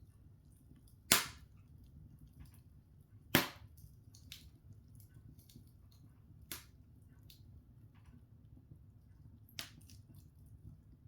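Open wood fire crackling, with two loud sharp pops about a second and three seconds in, then a few fainter pops and small ticks over a low steady rumble.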